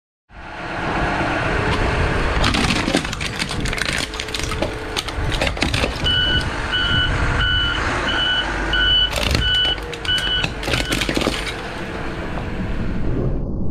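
A heavy vehicle's engine running as its tyre crushes a plastic-bodied Singer sewing machine, with many sharp cracks and snaps of the casing breaking. About six seconds in, a reversing alarm beeps steadily, a little under two beeps a second, for about four seconds.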